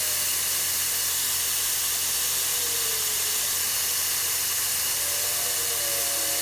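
Dyson HD01 hair dryer running on test, a steady rush of air with a faint high tone, its clogged filter freshly cleaned to cure the overheating that had been making it cut out.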